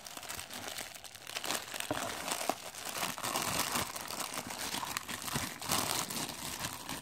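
Clear plastic wrapping bag crinkling and crackling as it is handled and pulled open, with crinkle-cut paper shred rustling, while a small cup is unwrapped.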